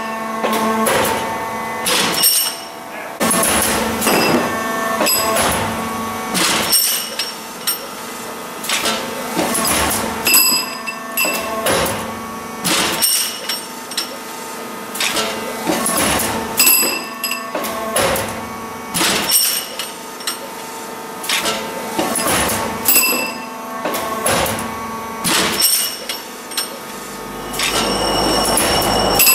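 Automated metal-tube handling machine running, with repeated metallic clanks and ringing knocks every second or so as the tubes are moved and dropped into place, over a steady machine hum.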